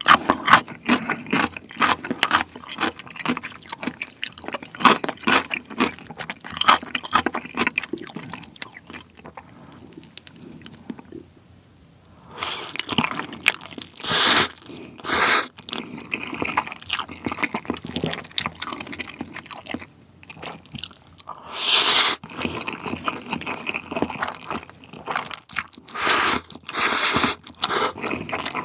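Close-miked eating of jjapaghetti black-bean instant noodles: steady wet chewing with small clicks. In the second half come several loud slurps as mouthfuls of noodles are sucked in from a bowl.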